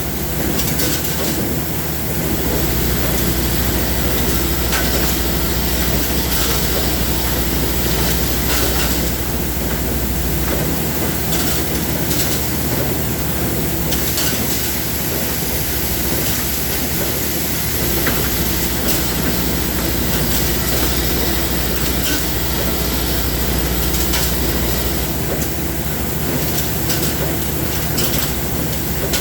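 Industrial machine running steadily, a dense mechanical noise with scattered clicks. A low hum swells and drops back every several seconds.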